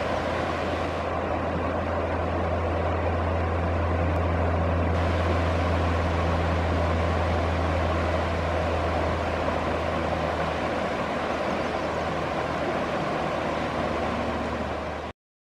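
River water rushing over shallow rapids: a steady rushing with a deep rumble underneath, which cuts off abruptly just before the end.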